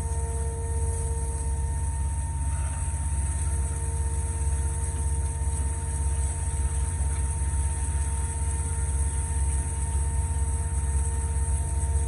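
Concrete line pump's engine running steadily, a constant low rumble with a steady high hiss over it.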